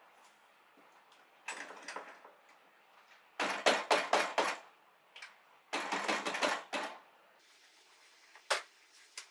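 Caps being handled on a hat-shaping machine: a rustle, then two runs of quick sharp clacks and rustles, and a single sharp click near the end. A faint steady hiss sets in for the last couple of seconds.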